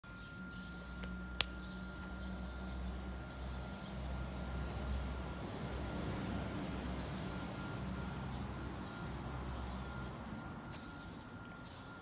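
Outdoor yard ambience: a low hum that comes and goes, with birds chirping and one sharp click about a second and a half in.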